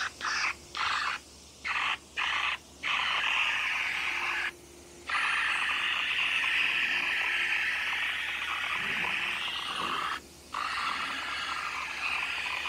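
Compressed-air powder-coating spray gun hissing as it sprays powder, switched on and off by the trigger: about five short bursts in the first three seconds, then long sprays broken by brief stops about four and a half and ten seconds in.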